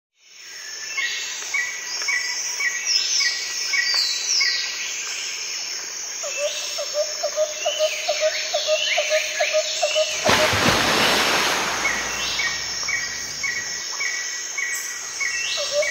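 Birds chirping and calling in a rural outdoor soundscape, with short rising chirps repeated over and over. A lower call repeats several times a second for a few seconds in the middle, and a burst of rushing noise lasting over a second cuts across about ten seconds in.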